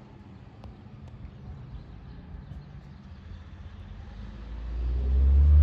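Fire engine's diesel engine running as the truck approaches, a low rumble that grows much louder over the last second and a half.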